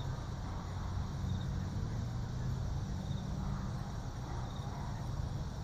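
Steady low hum over a faint hiss: room tone.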